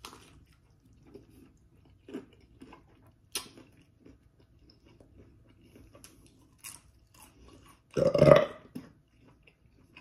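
Close-miked chewing of birria pizza, with wet smacking and small crunches of the crisp tortilla crust. A short, loud throaty sound comes about eight seconds in.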